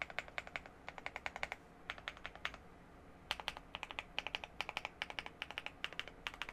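Typing on a mechanical keyboard with Gateron Silver Smoothie linear switches, Osume Dusk keycaps, a polycarbonate plate and full foams: quick runs of keystrokes with short pauses between them, each key bottoming out with a deep, smooth clack.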